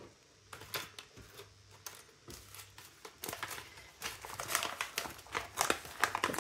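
Plastic packaging crinkling, with light clicks and rustles as small plastic diamond-painting tools are picked up off a wooden table; the handling gets busier in the second half.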